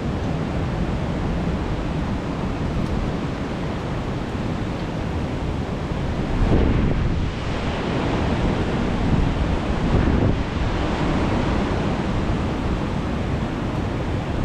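Strong wind buffeting the microphone over the wash of sea surf, with gusts swelling louder from about halfway through.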